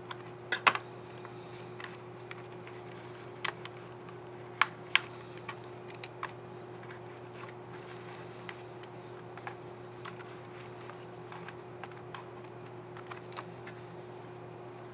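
Small sharp plastic clicks and snaps, scattered and irregular, the loudest about half a second, three and a half and five seconds in, with lighter ticks between: a laptop keycap and its scissor mechanism being handled and clipped onto the keyboard. A steady low electrical hum runs underneath.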